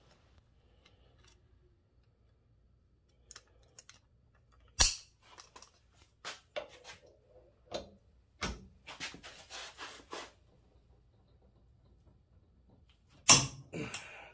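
Icon half-inch split beam torque wrench being handled and fitted, with a sharp click about a third of the way in and scattered smaller knocks and rattles. Near the end the wrench gives its loud release click as it reaches its 125 foot-pound setting on a test pull, breaking about 4 foot-pounds high.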